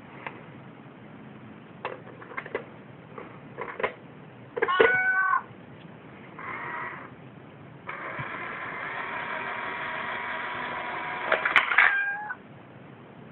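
Meowing: a few light taps, then a short loud meow about five seconds in, a fainter one near seven seconds, and a long drawn-out steady meow from about eight seconds to about twelve seconds.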